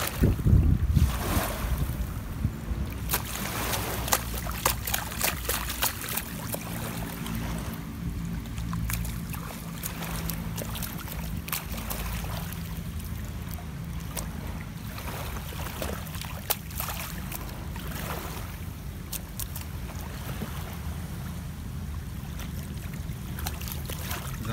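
Wind rumbling on the microphone over small waves lapping at a sandy shoreline, with a few short splashes of shallow water in the first several seconds.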